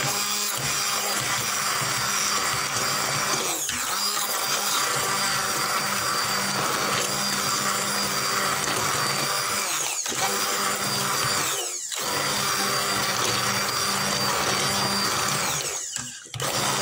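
Hand-held immersion (stick) blender running in a stainless steel pot of vegetable soup, pureeing it into a velouté: a steady motor whir with the blade churning the liquid. The sound dips briefly about four seconds in and again about twelve seconds in, and nearly cuts out just before the end.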